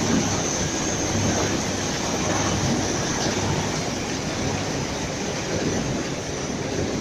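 High-speed rotary diecutter line for corrugated board running at production speed, with its conveyors carrying die-cut blanks to the stacker: a steady, dense mechanical clatter over a low hum.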